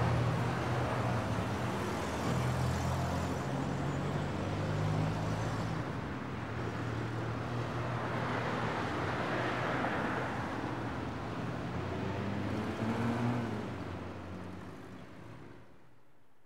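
Street traffic: car engines running and tyres passing on a city road, swelling about halfway through as a vehicle goes by. The sound fades out near the end.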